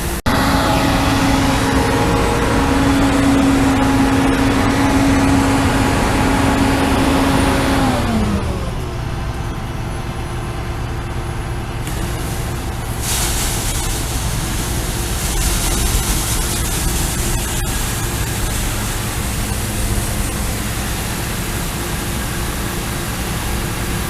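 John Deere S780 combine harvester running with a steady whine that drops in pitch and fades about eight seconds in, as a drive winds down. The machine then keeps running on at a lower, steady level.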